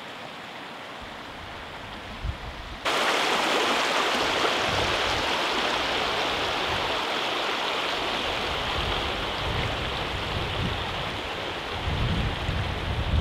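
Rushing water of a shallow, stony mountain stream, a steady loud rush that comes in suddenly about three seconds in. Wind buffets the microphone near the end.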